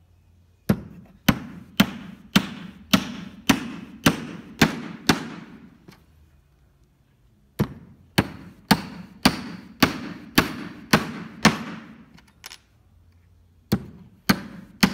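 Steel hammer driving nails through a plywood dust panel into a wooden cabinet frame: sharp, evenly paced blows about two a second, in three runs with short pauses between.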